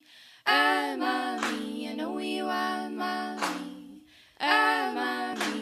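A singing voice over the intro, in two phrases: the first starts about half a second in and the second about four seconds in, after a short pause, each opening on a strong held note.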